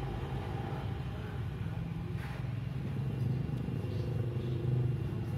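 An engine running steadily at an even idle, a constant low hum.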